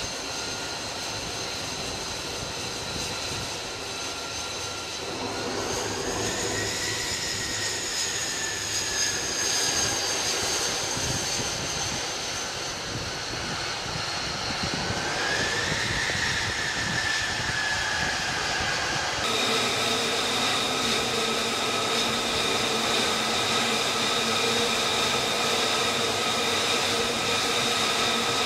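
F-35C's single Pratt & Whitney F135 turbofan whining at low power while the jet taxis, its pitch rising briefly twice with bursts of throttle, about five and fifteen seconds in. About two-thirds of the way through the sound shifts abruptly to a steady idling whine of a different pitch.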